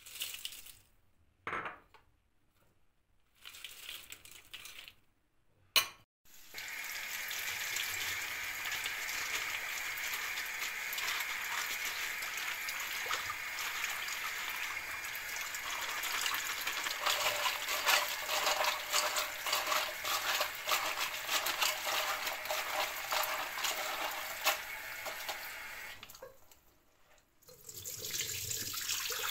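A few brief rustles as dried vegetables are tipped into a plastic strainer, a sharp click about six seconds in, then a kitchen tap runs steadily onto the dried vegetables in the strainer while a hand stirs them. After a short break near the end, water pours off a pot of soaking vegetables into the sink.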